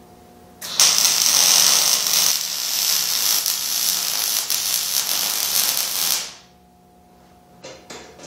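Wire-feed (MIG) welding arc crackling steadily on the steel chassis frame for about five and a half seconds, starting about a second in and cutting off sharply. A few light clicks follow near the end.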